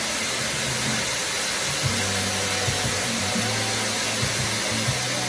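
Fountain fireworks (ground-mounted spark fountains) hissing steadily, with music underneath.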